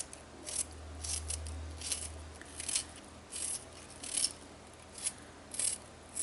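Knife cutting through a sweet onion: about ten short, crisp cuts at an irregular pace.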